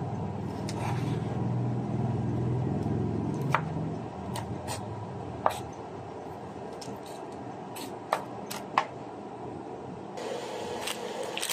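Kitchen knife cutting cooked ham on a bamboo cutting board: several sharp knocks of the blade on the board, irregularly spaced, with a low rumble under the first few seconds.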